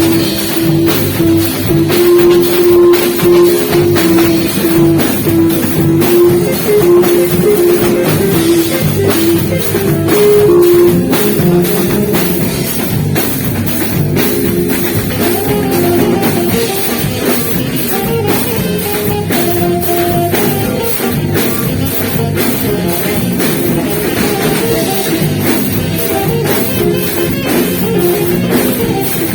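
Live band playing an up-tempo beiradão medley: a saxophone carries the melody over a steadily pounding drum kit. The melody line is most prominent in the first half.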